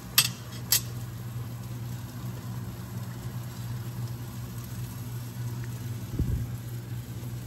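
Stovetop pot of pasta boiling, heard as a steady low hum, with two sharp clicks of a utensil on the pot near the start and a low thump about six seconds in.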